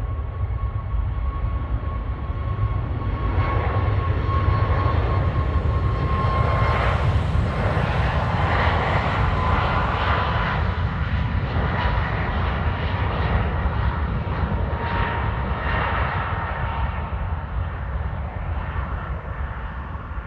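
Airliner engines passing close: a steady rumble with a high whine that drops a little in pitch partway through. It is loudest in the middle and fades toward the end.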